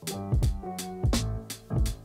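Background music with a steady drum beat over a bass line and held instrumental notes.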